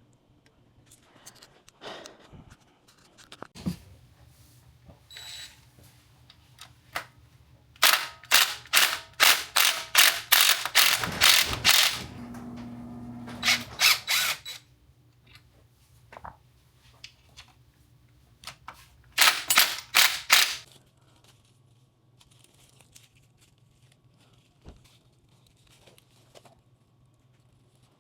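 Runs of loud, sharp mechanical clacks, about three or four a second, in three bursts. A short steady hum sounds between the first two bursts.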